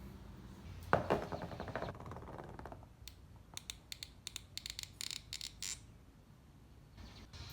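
A sudden clang that rings on for under two seconds, then a quick run of light clicks and knocks, like small metal parts or tools being handled.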